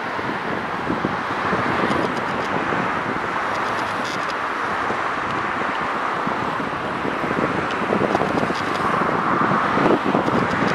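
Steady road traffic noise from cars crossing the bridge, getting a little louder over the last few seconds.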